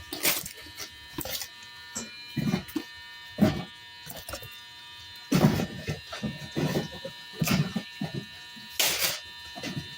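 An empty cardboard coffee maker box being smashed and torn apart: irregular thumps and crunches of cardboard, some hits much harder than others. A steady high whine runs underneath.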